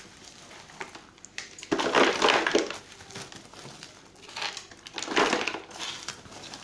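Handfuls of orchid bark poured into a cut-down plastic bottle used as a pot, in three noisy bursts, the loudest about two seconds in.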